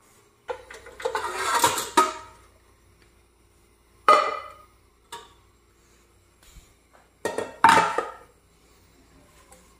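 Metal saucepans and dishes clattering as they are handled on a steel dish rack: a long rattle in the first two seconds, a sharp knock about four seconds in, and two more knocks near the end.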